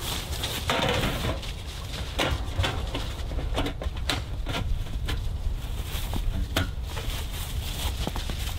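Sheet-metal stovepipe sections knocking, clinking and scraping as they are handled and slid together, with footsteps in dry leaves, over a low steady rumble.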